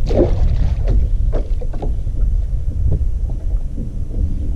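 Wind buffeting the camera microphone as a steady low rumble, with a few short knocks and rustles in the first couple of seconds and another about three seconds in.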